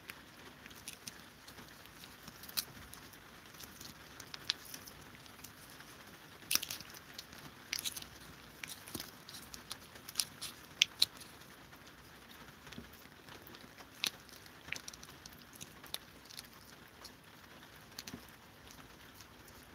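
Several cats licking lickable paste treats from squeeze tubes: irregular wet tongue clicks and smacks, thickest in the middle stretch.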